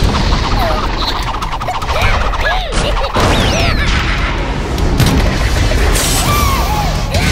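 Cartoon action sound effects: a dense run of crashes, booms and bangs, with short squeaky rising-and-falling chirps over them.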